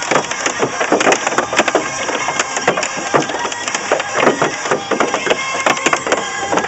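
Hailstones pelting a car's roof and windshield, heard from inside the cabin: a loud, continuous, irregular clatter of hard hits.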